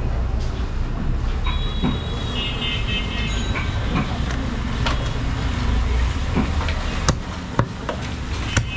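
Steady low rumble of background traffic, with a brief high squeal about two seconds in. Near the end come a few sharp knocks of a butcher's knife on a wooden log chopping block.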